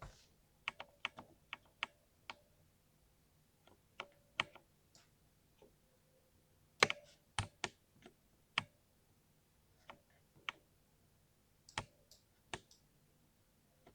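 Mechanical keyboard keystrokes: sharp separate clicks in irregular clusters with short pauses between them, the loudest about seven seconds in.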